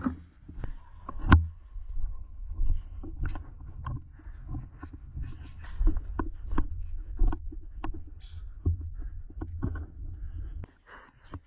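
Movement and handling noise from players on the move: a low rumble with many scattered knocks and clicks, stopping near the end.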